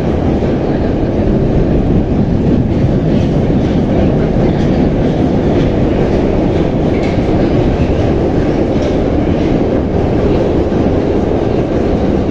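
Moscow Metro 81-717/714 subway train running steadily through the tunnel, heard from inside: a loud, even low rumble of wheels on rail with faint ticks now and then.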